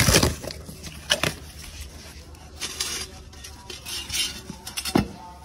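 Corrugated cardboard packing being handled and lifted out of a box, rustling and scraping, with a few sharp knocks: one at the start, one about a second in and one near the end.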